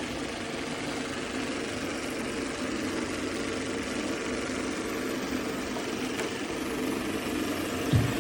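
AIRROBO T20+ robot vacuum running, a steady motor and brush drone with a faint hum. There is a short thump near the end.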